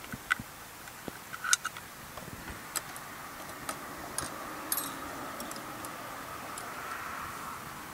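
Scattered light metallic clicks and ticks of hands handling the carburetor linkage on a small lawn mower engine with its cylinder head off. A faint steady hum sits underneath in the second half.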